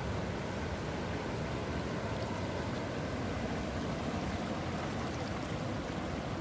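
Sea surf washing and foaming between boulders on a rocky shore, a steady rushing wash without separate crashes.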